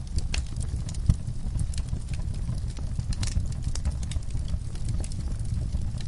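Wood fire burning: a steady low rumble with irregular crackles and pops, one sharper pop about a second in.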